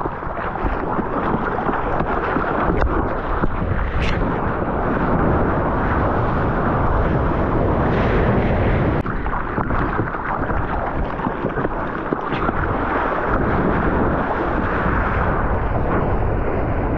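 Rushing, churning whitewater and spray close to the microphone, with wind buffeting it and scattered sharp splashes.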